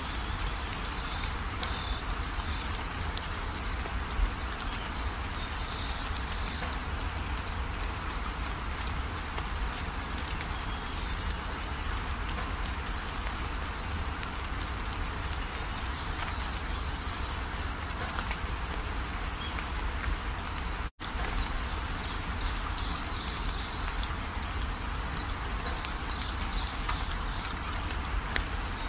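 Steady hiss like falling rain, with faint irregular high chirping over it; the sound drops out for an instant about two-thirds of the way through.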